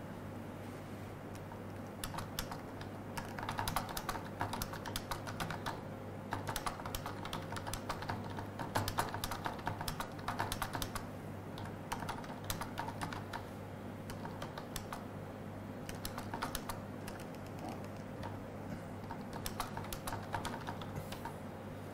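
Typing on a laptop keyboard: irregular runs of quick key clicks with short pauses, starting about two seconds in, over a steady low hum.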